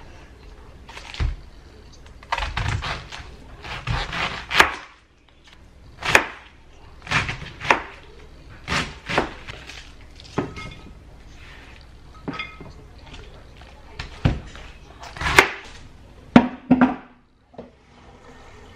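Kitchen knife chopping a head of white cabbage on a plastic cutting board: irregular sharp chops, some in quick runs of three or four, with short pauses between.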